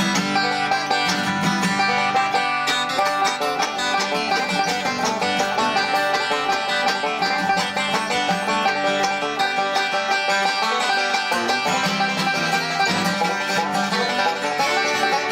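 Background music: bluegrass-style tune with a plucked banjo, picked quickly and steadily.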